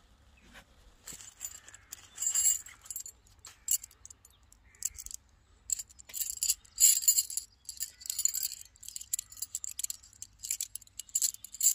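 A bundle of lightweight metal shepherd's-hook tent pegs clinking and jangling together as they are handled. The clinks come in irregular bunches, starting about a second in.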